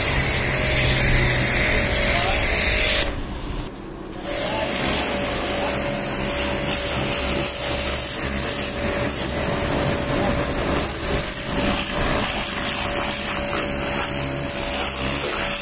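Pressure washer running, its motor and pump giving a steady whine under the hiss of the water jet spraying onto a car's body panels. The spray and the whine cut out for about a second, about three seconds in, then start again.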